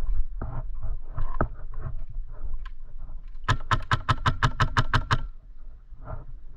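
Airsoft gun firing a rapid string of about a dozen shots, around seven a second, midway through, after a few seconds of irregular knocks and thumps of movement.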